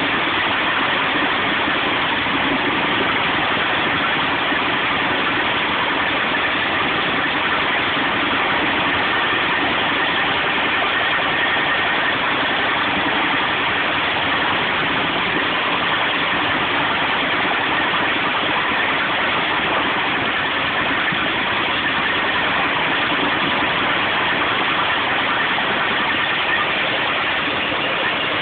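Old straw chaff cutter converted into a branch chipper, running with a steady, continuous mechanical noise.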